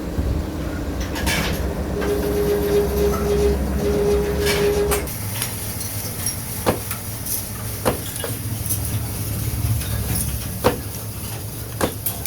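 Workshop machinery running with a steady hum and a held tone. About five seconds in it gives way to a lower hum with sharp knocks a second or few apart, like metal parts being struck or set down.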